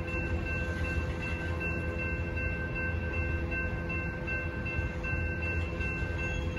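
Freight train's covered hopper cars rolling past at a grade crossing: a steady low rumble of steel wheels on the rails. Over it, the crossing's warning bell rings in even, repeating tones.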